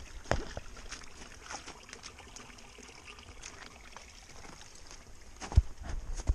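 Hiker's footsteps on a snowy, rocky trail with taps of a trekking pole on the rocks, over a faint steady hiss. There is a sharp tap about a third of a second in, and heavier boot thumps come near the end.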